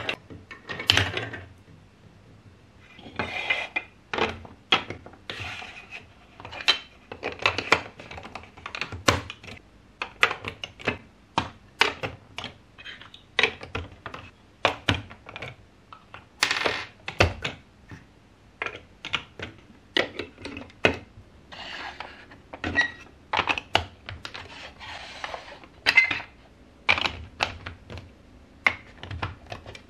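Large plastic building blocks and marble-run track pieces being handled, pressed together and set down: irregular sharp clicks and knocks, with a few short stretches of rattling.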